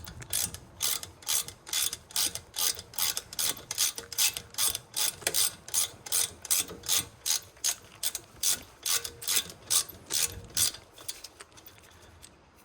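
Hand socket ratchet turning out a brake caliper bolt, a rapid run of pawl clicks on each back-swing, about two swings a second, stopping near the end.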